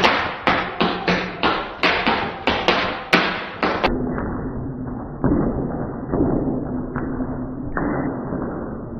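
Rubber band Gatling gun firing, its sound slowed with the picture: a regular run of sharp snaps about three a second. About four seconds in, the sound slows further into a deep, dull rumble with slow pulses.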